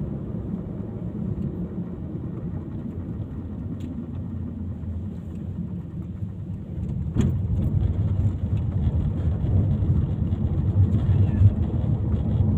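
A vehicle driving, with a steady low engine and road rumble that grows louder after a short click about seven seconds in.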